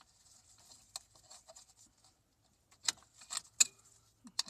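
Small-parts handling noise: soft rustling, then a few sharp clicks and taps from about three seconds in as the new power steering filter is handled at the reservoir.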